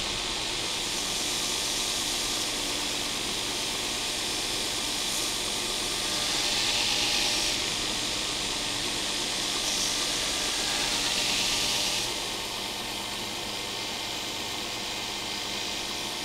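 Belt grinder running steadily while a knife blade is held against the fine abrasive belt in finishing passes, with two stretches of brighter grinding hiss about six and ten seconds in. The overall level drops a little after about twelve seconds.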